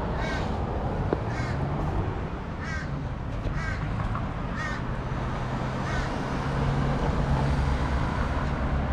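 A bird calling over and over, short calls about once a second that thin out after about six seconds, over a steady low hum and rushing noise.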